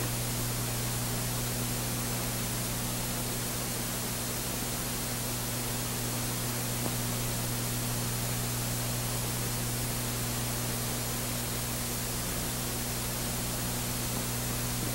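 Steady hiss and a low, even hum of an old film soundtrack, with no dialogue, music or other sound over it.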